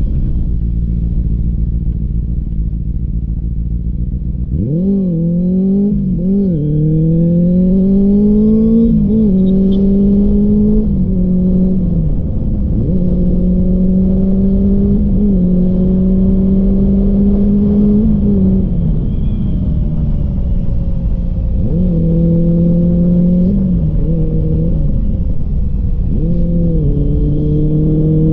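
Benelli TNT 600i's inline-four engine accelerating hard through the gears: the pitch climbs and drops sharply at each upshift from about five seconds in, holds steady at cruise in the middle, falls as the throttle is eased, then climbs through two more upshifts near the end. Wind rumbles on the microphone in the first few seconds.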